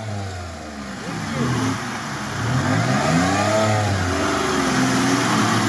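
Lada Niva's engine revving up and down as it pushes through a flooded mud channel, with the churning and splashing of water around its wheels. The engine and the water get louder about two seconds in.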